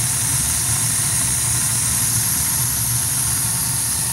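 Burnham ES2 gas boiler firing, its burners running with a steady, even rushing hiss over a low hum.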